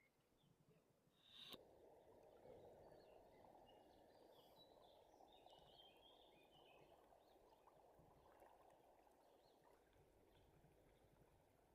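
Near silence: faint birdsong over a faint steady rush of river water, with a single click about a second and a half in.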